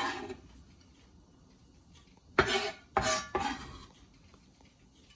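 Chef's knife blade scraping across a plastic cutting board, then two sharp knocks of the knife about half a second apart a little over two seconds in.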